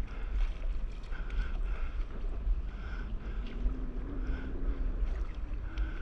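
Water slapping and sloshing against a stand-up paddleboard in choppy sea, over a steady low rumble of wind on the microphone.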